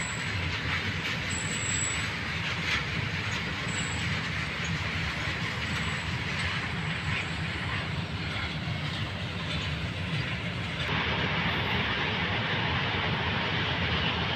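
Loaded freight train wagons rolling past steadily on the rails, their wheels running over the track. About eleven seconds in the sound turns abruptly brighter and slightly louder.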